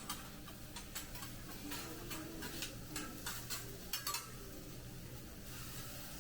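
Metal utensils clinking and tapping in a dozen or so irregular sharp clicks, the loudest about four seconds in, over a low steady background hum, with a short hiss near the end.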